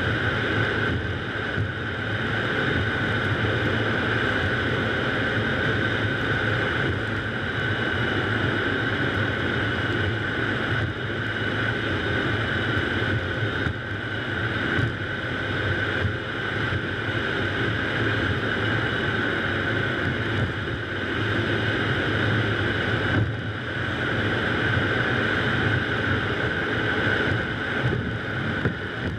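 Steady road noise from a moving car: tyres on damp pavement and wind buffeting a GoPro mounted low on the outside of the car.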